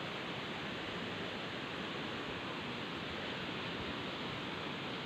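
Steady rush of a fast-flowing stream running over rocks, with no change in level.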